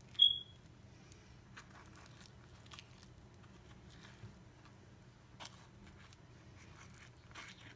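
A metal spoon scooping diced avocado out of its skin into a ceramic bowl: one short ringing clink right at the start, then faint scrapes and soft clicks.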